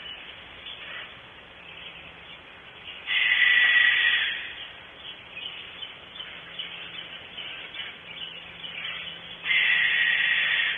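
Barn owl screeching: a long, harsh, hissing scream about three seconds in and another starting near the end, with fainter, shorter screeches between.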